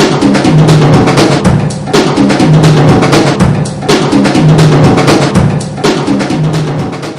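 Looped drum beat of kick and snare hits over a short pitched bass figure, the pattern repeating about every two seconds and fading out at the end.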